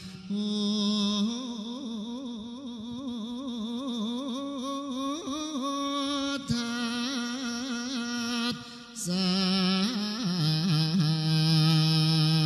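Chant-like vocal music: one voice holding long, slowly wavering notes that step up and down in pitch, with a short break about three-quarters of the way through.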